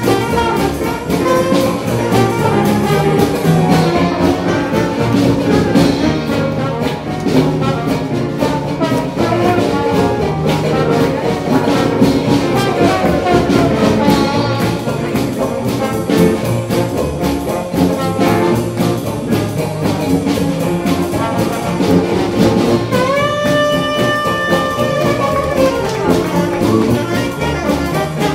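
Small traditional New Orleans-style jazz band playing live over a steady beat, with a 1923 Buescher saxophone, trombone, clarinet and piano. About three quarters of the way through, one horn slides up into a long held note.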